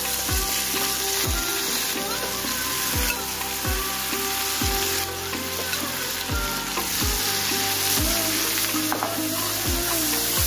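Sliced onions sizzling as they fry in hot mustard oil in a pan, tipped in from a bowl and then stirred with a spatula.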